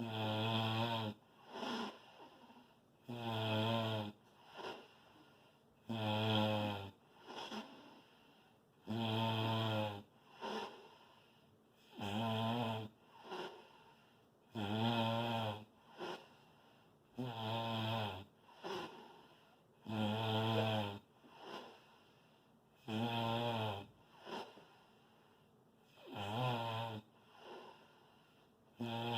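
Loud snoring: a pitched, buzzing snore lasting about a second, repeating roughly every three seconds. Each snore is followed by a shorter, softer sound.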